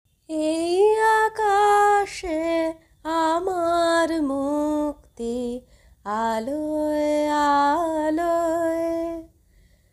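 A woman singing a slow melody in several phrases, holding long notes with brief pauses between phrases.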